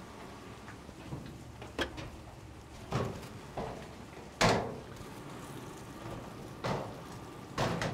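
Several knocks and clatters from metal storage cabinet doors and drawers being opened and shut while paper towels are fetched, the loudest about halfway through. Underneath, bacon sizzles steadily on a flat-top griddle.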